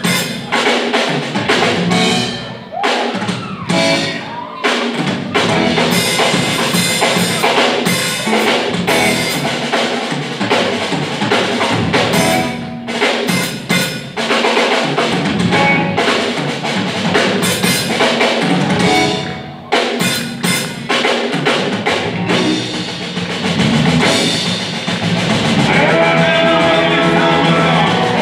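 Live blues band playing an instrumental section, led by a drum kit with bass drum, snare and rim hits, broken by brief stops. About 25 seconds in, the full band's sustained notes swell in under the drums.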